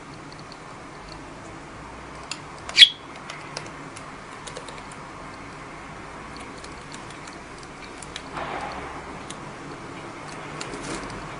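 Budgerigar giving one short, loud chirp about three seconds in, with scattered faint clicks throughout. Near the end comes a short breathy rasp.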